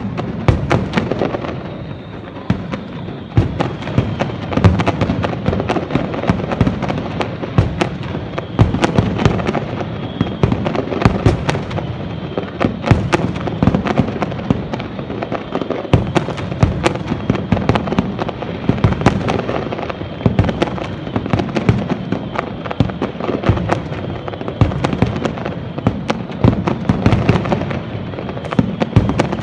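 Aerial fireworks display: a rapid, unbroken string of bangs and crackling bursts, several a second, with louder reports scattered throughout.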